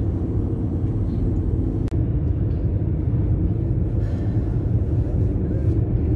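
Steady low engine and tyre rumble inside a moving car's cabin, with a short click about two seconds in.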